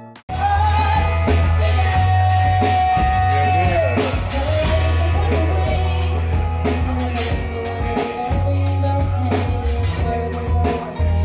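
Small live band playing: a woman singing over bass guitar and electric guitar with a steady beat. She holds one long note for the first few seconds, then it slides down.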